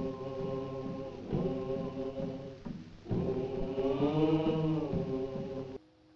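A group of voices singing in chorus, a slow chant in three long held phrases that cuts off shortly before the end.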